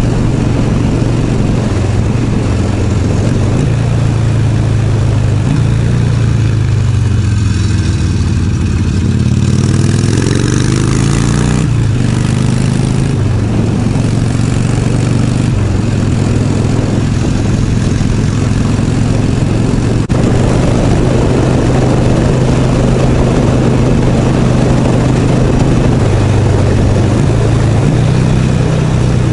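Motorcycle engine running under way, heard from the rider's helmet with wind rush on the microphone. About a third of the way in the engine note climbs in pitch through a couple of gears with a burst of wind noise, then it settles into a steady cruise.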